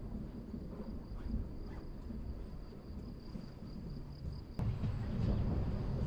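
Electric train of the Berner Oberland Bahn running slowly into a station: a steady low rumble with a thin, steady high whine and a few faint clicks. About four and a half seconds in, the rumble suddenly gets louder.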